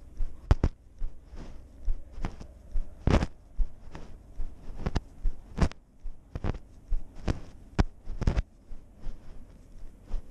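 Muffled, irregular thumps and knocks, about one to two a second, from a GoPro jostling on a walking cat's harness as it steps through grass; the loudest comes about three seconds in.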